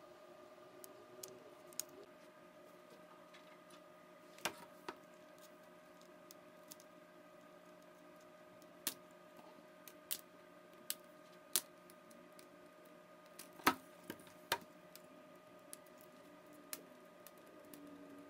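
Irregular sharp clicks and snaps as a flathead screwdriver pries the bezel off a laptop's screen lid, popping its clips loose one by one; the loudest pair comes about two-thirds of the way through. A faint steady hum lies underneath.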